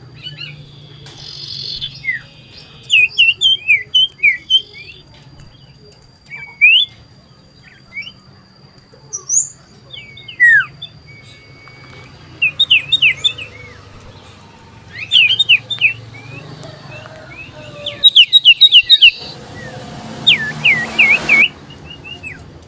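Common iora (cipoh) singing loudly in repeated bursts of quick whistled notes that rise and fall, several notes to a burst.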